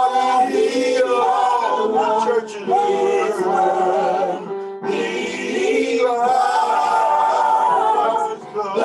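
A small group of men's and women's voices singing a gospel song together in harmony, unaccompanied, with held notes and a short break about halfway.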